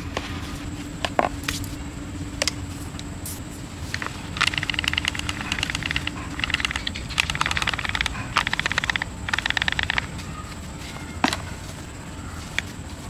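A spatula knocks and scrapes through mashed sweet potato in a bowl. This gives way to several stretches of grainy rattling, as starch and sugar are poured into the bowl. A sharp knock of the spatula against the bowl comes near the end.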